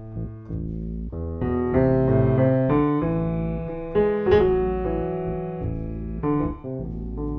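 Background piano music: sustained notes and chords that change every second or so.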